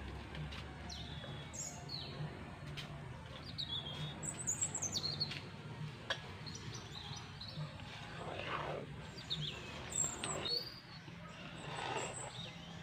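Small birds chirping, with many short falling calls, over a low steady hum. A few soft scrapes of a wooden spatula stirring thick paste in a metal wok come in the second half.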